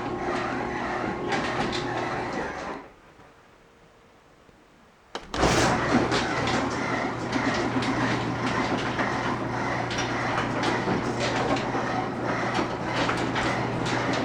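Chamberlain belt-drive garage door opener running as the door travels, with a steady motor hum and the rattle of rollers in the track. It stops near three seconds, then about two seconds later there is a click and the opener starts up again.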